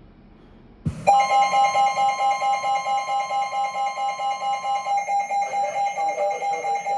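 A weather radio's alert alarm going off after a click about a second in: a steady high tone pulsing rapidly, as the radio activates for a flash flood warning.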